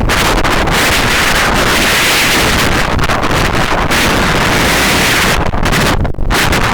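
Strong wind buffeting the microphone, a loud, steady rush with a deep rumble, easing briefly near the end.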